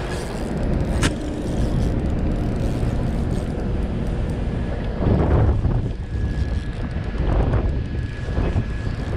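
Wind buffeting the microphone: a steady low rumble with louder gusts about halfway through.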